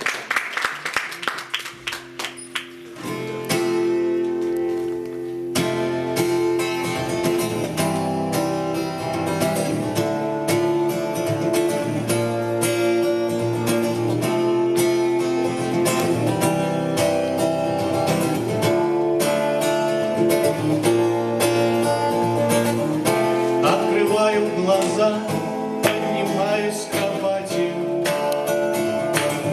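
Instrumental introduction of a song: acoustic guitar played with regular strums over held chords, starting softly with a few picked notes and coming in fully about three seconds in.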